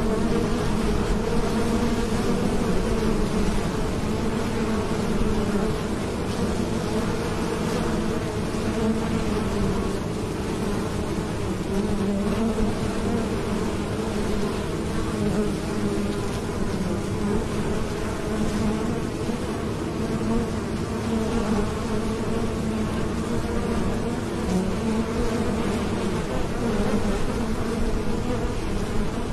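Honeybees buzzing at a hive entrance: a steady drone of many wings as bees fly in and out, with no breaks.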